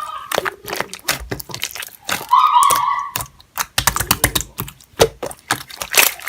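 Clear slime with beads mixed in being pressed and poked by hand: a rapid, irregular string of sticky clicks and pops, with a short squelching squeak of trapped air a little over two seconds in.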